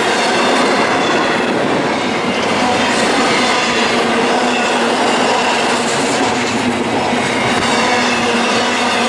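A CSX double-stack freight train passing close by: steady, loud noise of steel wheels running on the rails, with faint thin high-pitched squeal tones over it.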